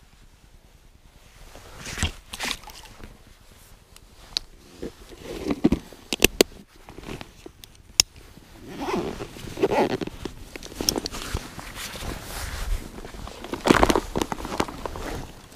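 Rummaging through a backpack of fishing gear close to the microphone: irregular rustling of fabric and plastic with scattered sharp clicks, the loudest rustle near the end.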